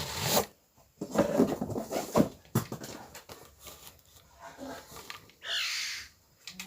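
Packaging being handled during an unboxing: rustling, clicks and knocks. About five and a half seconds in comes a short rasping, tearing sound.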